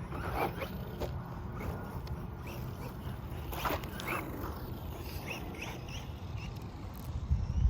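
Wind rumbling on the microphone, with a few short, distant animal calls.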